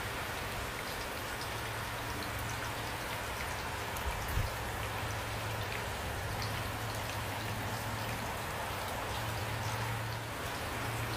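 Steady rain with many individual drops pattering on a surface, over a faint low hum. A single louder drop or knock lands a little over four seconds in.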